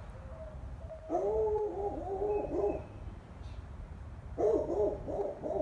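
A frightened cat giving a low, wavering defensive yowl, in two drawn-out bouts about a second and four seconds in.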